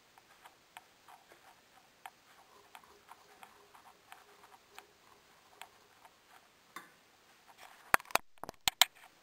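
Minced meat frying in a stainless steel pan: faint, irregular crackling pops, with a cluster of louder, sharper clicks near the end.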